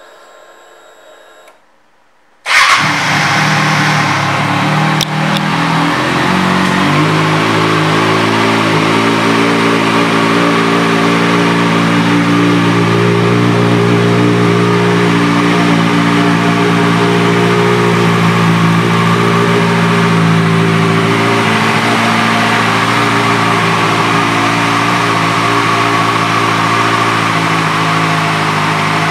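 2008 Kawasaki Ninja ZX-6R inline-four with an M4 aftermarket exhaust firing up about two and a half seconds in, then idling steadily. The idle settles to an even note within a few seconds.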